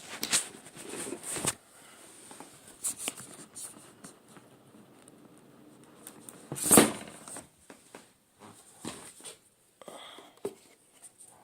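Intermittent handling noises of a remote-control retail box and its packaging being opened and unpacked: scattered taps, rustles and scrapes, the loudest about seven seconds in.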